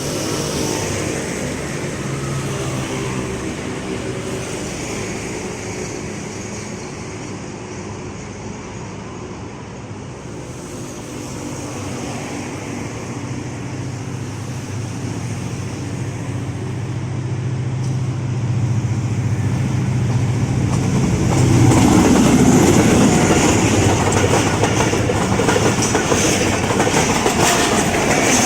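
Diesel locomotive engine running with a steady drone as the train comes closer, growing louder. About two-thirds of the way through the drone gives way to the louder rolling clatter of the train's wheels and carriages passing.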